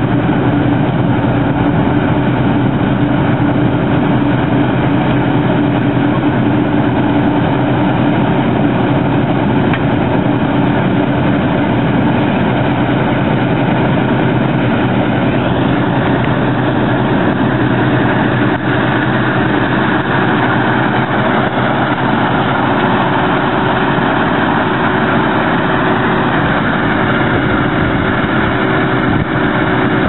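CLAAS Lexion 520 combine harvester running steadily as it cuts winter barley, its engine and threshing machinery working together.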